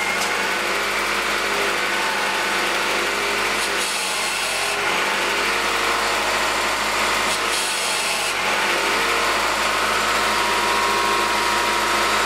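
Honda Accord engine running with its power steering pump whining and rasping through a freshly filled, just-bled system. The high rasp swells briefly twice, about four and eight seconds in.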